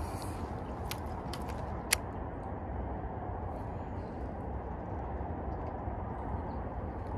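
Steady low outdoor background noise, with a few sharp clicks, the loudest about two seconds in.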